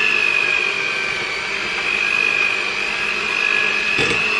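Electric hand mixer running, its beaters whisking banana bread batter in a bowl: a steady high whine that sags slightly in pitch, with a brief knock about four seconds in.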